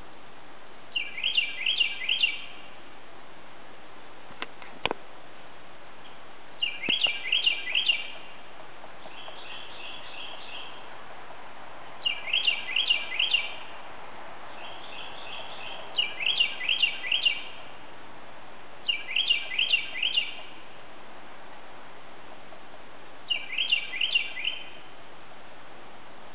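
Northern cardinal singing: short phrases of four or five quick down-slurred whistled notes, repeated every few seconds over a steady background hiss. A faint click about five seconds in.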